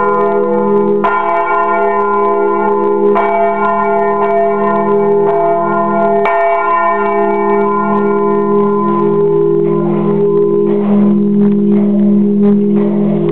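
The church's two bronze bells, cast by Fremy and Bachert, swing and ring close up in the belfry, ringing in Sunday. Strikes come every one to two seconds. About eight seconds in they die away, and the long ringing tone carries on.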